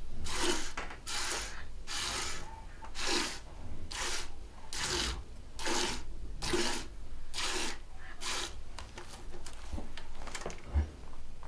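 A cow being milked by hand into a pail: squirts of milk hiss into the pail at an even pace, a little over one a second, turning shorter and more irregular near the end, with one low thump near the end.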